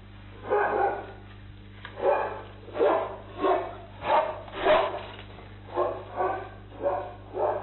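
An animal barking: about ten short barks in quick succession, in two runs with a brief pause between them.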